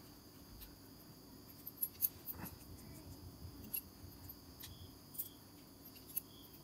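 Faint, scattered small clicks and taps of a precision screwdriver and watch parts being handled, about one every second, over a faint steady high-pitched tone.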